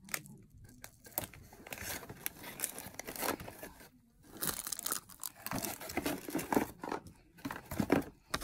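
Irregular rustling and crinkling with scattered small clicks, the sound of close handling and movement right by the phone's microphone. There is a short pause about four seconds in.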